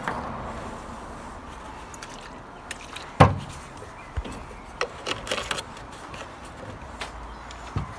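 Plastic printer case parts being handled and scrubbed: one loud knock about three seconds in, then several lighter clicks and taps around five seconds, over a steady low background hiss.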